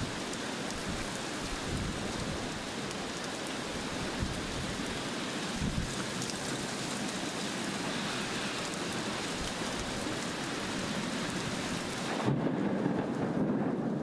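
Heavy rain pouring down as a steady, dense hiss of a downpour on street and pavement. About twelve seconds in, the sound changes to a closer, heavier drumming of rain beating on flooded pavement.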